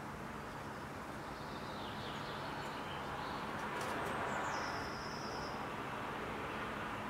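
Thin, high bird calls over a steady hum of city traffic. The traffic swells a little around the middle, and the clearest call, about five seconds in, slides down and then holds one high note for about a second.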